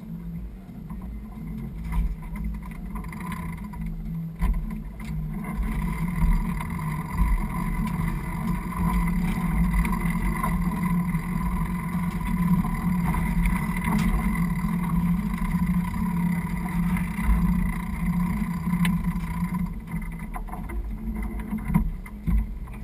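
Sailing yacht underway: steady rumble of water and wind against the hull and camera, with a steady hum that comes in about five seconds in and drops away a few seconds before the end.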